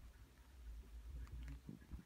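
Faint, quiet rumble typical of a handheld phone being moved, with a few soft ticks about a second and a half in.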